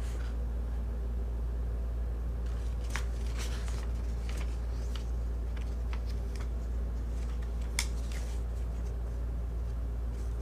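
Light clicks and rustles of hands handling small plastic parts, with a sharper click near eight seconds in, over a steady low hum.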